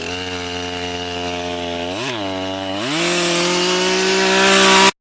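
Two-stroke chainsaw engine running steadily, blipped briefly about two seconds in, then revved up and held at a higher pitch before cutting off abruptly.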